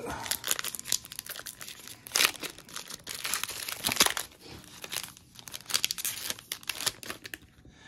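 A trading-card pack's wrapper crinkling and tearing as it is ripped open: a dense run of crackles, with a few sharper, louder rips about two and four seconds in.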